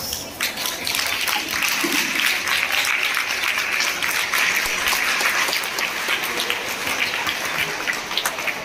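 Audience applauding, many hands clapping together. The applause swells about half a second in, holds steady, and tapers off near the end.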